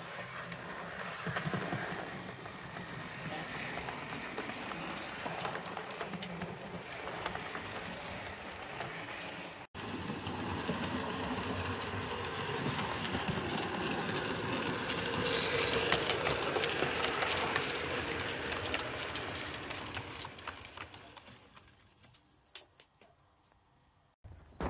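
Model railway trains running past on the layout: the small electric motor's hum and the wheels clicking over the rail joints. It swells as a train of coaches passes and fades away near the end.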